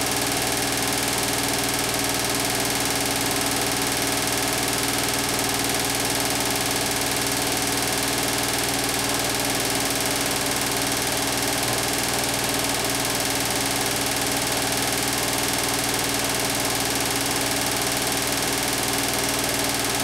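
Beko WTK104121W front-loading washing machine giving off a constant mechanical hum and hiss while its drum is at rest, with no change from start to end.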